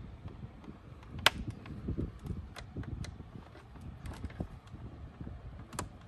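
A metal flat-blade screwdriver is prying and scraping against the plastic brush-roll housing of a Shark Navigator vacuum while a wheel axle rod is worked out. It gives scattered small clicks and scrapes over a low handling rustle, with one sharp click about a second in.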